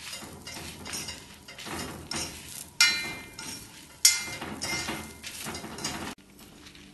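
Steel spoon stirring and scraping dry-roasting coriander seeds, dried red chillies, grated coconut and shallots in a cast-iron pan, with no oil in it. The spoon strikes the pan twice with a sharp metallic clink, about three and four seconds in, and the sound stops abruptly near the end.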